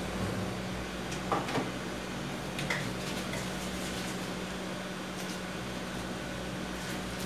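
A few light knocks and clicks as a bare LCD TV panel and its boards are handled and stood upright: two close together about a second and a half in, another near three seconds. A steady low hum runs underneath.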